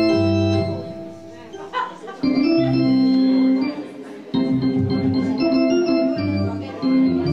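Organ music: sustained chords over a slow-moving bass line, dropping away twice briefly before swelling back.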